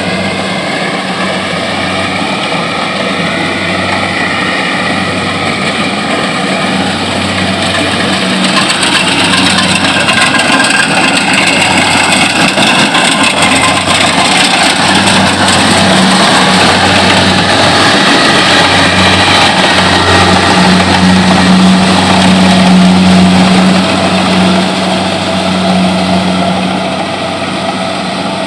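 Kubota combine harvester's diesel engine running steadily as it cuts rice, a low hum that grows louder about a third of the way in as the machine comes close, then eases off near the end.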